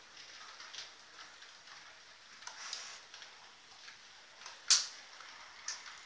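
Piko Vectron model electric locomotive and its freight wagons rolling along model railway track: a light rolling hiss with irregular small clicks of the wheels over rail joints and points, and one sharp click about three-quarters of the way through.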